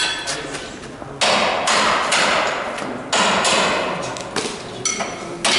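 Hammer blows on metal, about eight heavy strikes at uneven intervals starting about a second in, each echoing in a large workshop.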